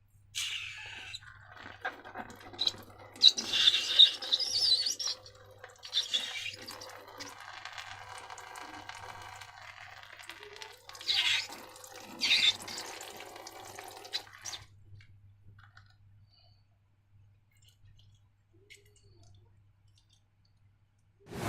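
Wet slime squelching and crackling as it is squeezed and handled, in irregular bursts that stop about two-thirds of the way through.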